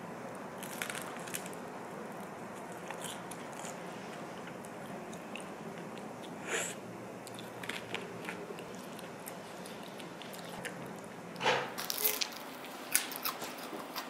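Close-up eating sounds: crunchy bites and chewing of pan-fried dumplings and tteokbokki, a few scattered crunches over a steady low room hum, with a louder cluster of crunches and clicks near the end.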